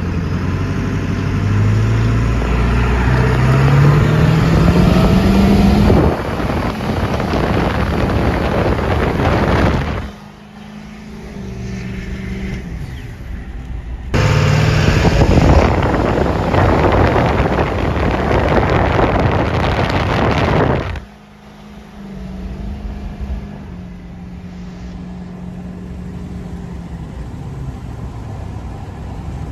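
2002 Ford F-250's 7.3-litre Powerstroke turbo-diesel V8 under hard acceleration, its pitch rising over the first six seconds, then loud full-throttle running that drops off abruptly twice and comes back once, ending in steadier, quieter running.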